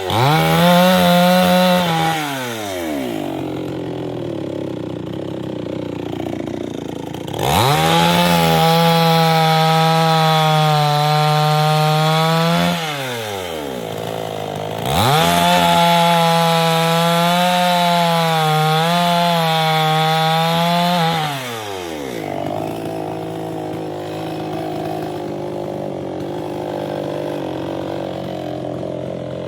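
Chainsaw engine winding down from full throttle at the start, then revved up and held high twice, for about five and six seconds, its pitch dipping slightly under load as it cuts wood. Each time it falls back to idle, and it idles through the last several seconds.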